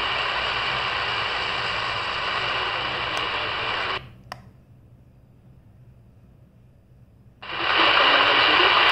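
Medium-wave static hissing from a CS 106 DSP radio's speaker as it scans the AM band. About four seconds in, the hiss cuts out abruptly with a small click as the scan mutes the audio while seeking. It then drops to a faint hiss, and about three and a half seconds later louder static returns as the radio settles on 972 kHz.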